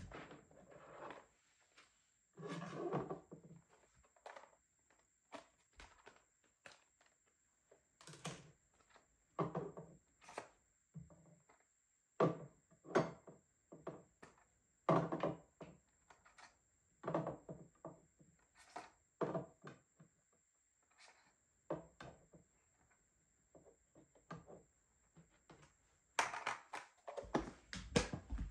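Clear plastic storage box and its lid clicking and knocking as makeup sponges are handled and packed into it and the box is set on the vanity top: a series of separate short knocks and rattles with light rustling between them.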